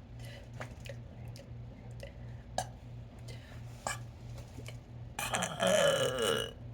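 A woman's small mouth clicks and swallows, then about five seconds in a long, loud burp, falling in pitch and lasting over a second.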